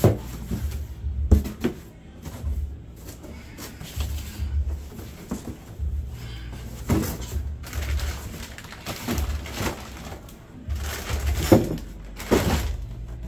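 Cardboard boxes and bagged parts being packed into a large cardboard shipping box: irregular knocks, scrapes and rustles of cardboard and plastic. The loudest knocks come near the end.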